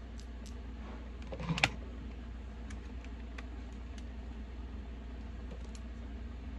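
Makeup items handled on a tabletop: scattered light clicks and taps, with one sharper click about one and a half seconds in, over a steady low hum.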